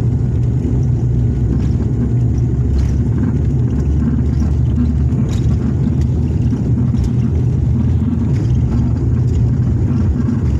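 Turboprop engines and propellers of an ATR 72 airliner at takeoff power, heard from inside the passenger cabin: a loud, steady low drone.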